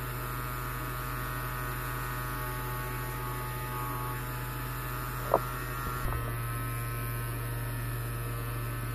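Steady electrical hum with a buzzing edge from powered bench electronics, a homemade 8-volt step-up generator circuit and its supply. A single sharp click about five seconds in, and the hum shifts slightly a second later.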